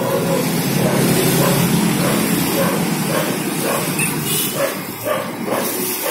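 Street noise with a motor vehicle engine running, and a clear plastic bag rustling and crinkling about four seconds in as the food is bagged.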